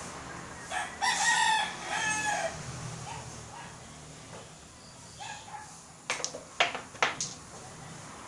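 A rooster crows once, about a second in, in one drawn-out call lasting about two seconds. Near the end come three sharp clacks in quick succession.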